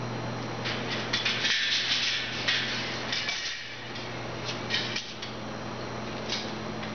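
Scattered metallic clinks and rattles of metal parts being handled, with a longer rustling, scraping stretch from about one to three seconds in, over a steady low hum.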